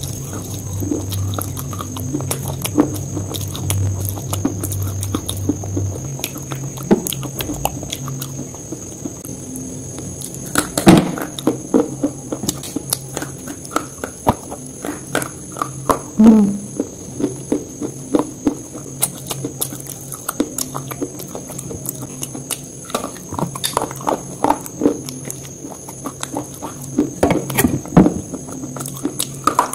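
Open-mouthed chewing of a KitKat chocolate wafer: irregular crunches and wet mouth clicks, a few much louder than the rest. A steady faint high whine runs underneath, with a low hum that stops about six seconds in.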